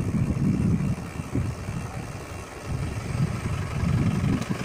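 Low, uneven rumble of wind buffeting the microphone while moving along a road.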